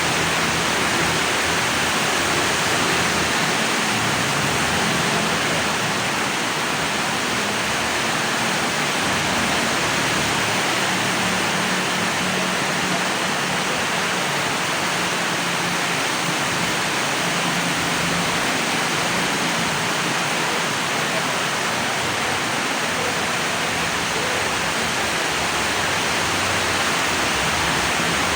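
Steady rain falling, an even hiss that holds constant throughout with a faint low rumble beneath it.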